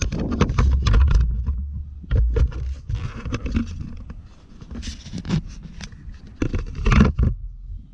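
Close handling noise on a GoPro camera body: irregular scraping and knocks with heavy low rumbling as the camera is jostled and rubbed against, loudest about a second in and again near the end.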